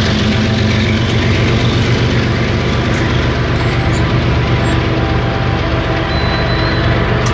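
GE ES44AH diesel locomotive's V12 engine running steadily at the rear of a freight train, a loud low drone.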